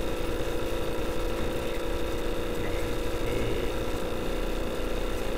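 A steady low hum with several fixed tones, running evenly at a constant level.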